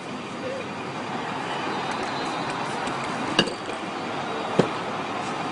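Steady street background noise with two sharp knocks, about three and a half and four and a half seconds in, the first with a short high ring like metal or glass being struck.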